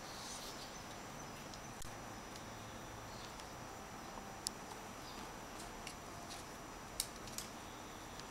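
Quiet room tone with a thin steady high whine, broken by a few light, sharp clicks and taps.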